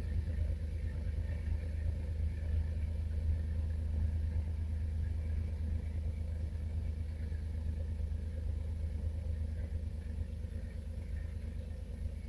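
M62 diesel locomotive's two-stroke V12 engine running with a steady low rumble that eases a little toward the end.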